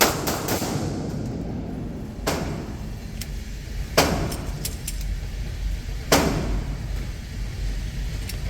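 Gunshots at a shooting range: four loud shots spaced about two seconds apart, each with a short ring after it. A few fainter sharp clicks fall in between.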